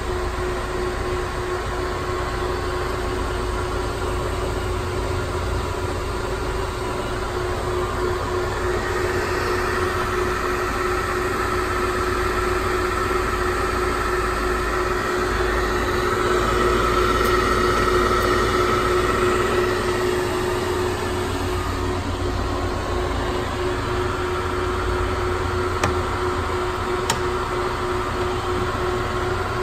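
Monarch Model K engine lathe running under power with its spindle and chuck turning: a steady headstock gear-and-motor hum with a constant whine, growing a little louder about halfway through before settling back.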